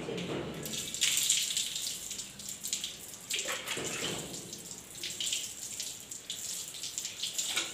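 Water poured from plastic mugs over long hair during a rinse, splashing and streaming off the hair onto a concrete floor, in repeated pours that come and go.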